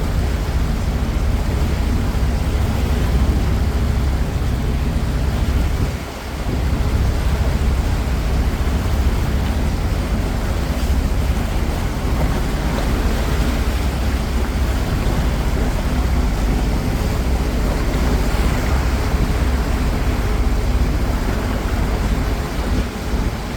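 Steady rumble of wind on the microphone aboard a moving cruise boat, over the drone of its engine and the wash of water, with a brief dip about six seconds in.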